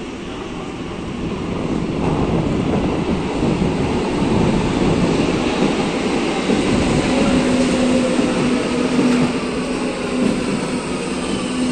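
Berlin U-Bahn train pulling into a station: rumble of the wheels on the track swells from about two seconds in, then, as the train brakes, a steady hum and a whine falling in pitch.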